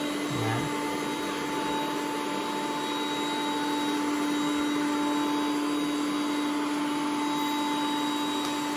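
Ecovacs Deebot T8 Power robot vacuum running on its edge-cleaning pass along the wall: a steady fan whir with a constant hum.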